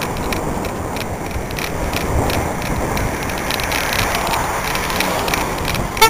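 Wind buffeting a bicycle-mounted camera, with tyre noise on asphalt and light, irregular clicks and rattles from the bike while riding. A short horn toot starts right at the end.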